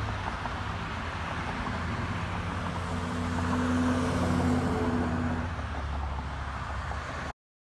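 Road traffic passing on a highway: cars and a tractor-trailer going by close, with tyre and engine noise that swells as the truck passes about four seconds in. The sound cuts off abruptly near the end.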